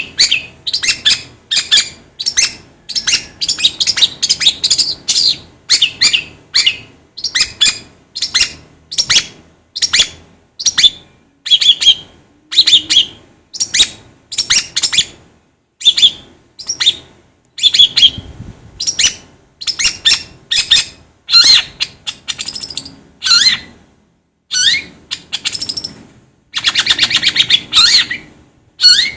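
Long-tailed shrike (cendet) singing: a rapid string of short, sharp chattering notes, about two a second, with a longer harsh buzzy call near the end.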